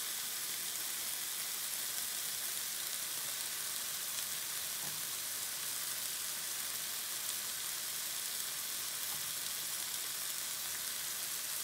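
Bite-size chicken breast pieces sizzling steadily in oil in a frying pan, an even hiss while they cook through.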